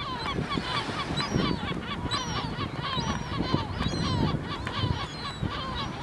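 Gulls calling: many short, high, falling calls, several a second, overlapping from more than one bird.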